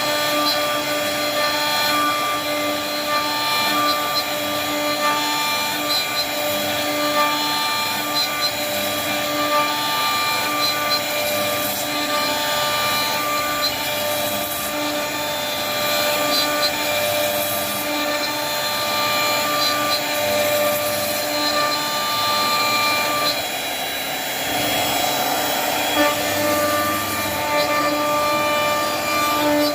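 CNC router spindle running steadily while cutting wood, a sustained whine with shifting tones over a constant cutting hiss.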